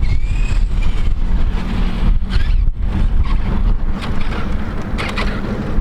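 Steady rumbling wind buffeting the microphone, with a few faint rising and falling whines above it.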